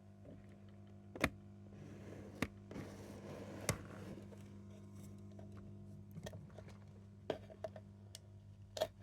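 Steady low electrical hum with a handful of sharp clicks and knocks scattered through it, typical of cables and speaker connections being handled.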